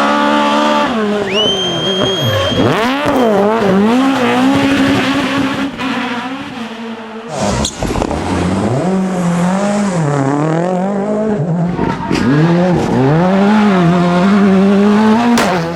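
Rally car engines at full throttle, the revs climbing and dropping again and again through gear changes and lifts, with a brief high tyre squeal about a second in. About halfway through the sound changes abruptly to another car doing the same.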